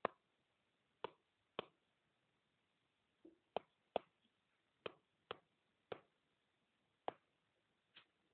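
Stylus tapping on a tablet screen while handwriting: about ten short, sharp clicks at uneven intervals over near silence.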